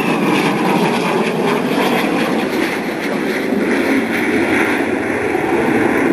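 Harrier GR7 jump jet's Rolls-Royce Pegasus turbofan running loud and steady in flight, with a high whistle falling in pitch just at the start.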